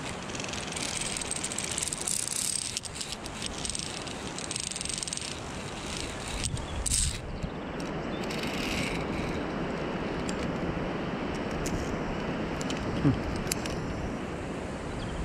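Metal carabiners and clips clicking, rattling and scraping along a via ferrata's steel safety cable, with many clicks in the first half and fewer later, over a steady rushing noise.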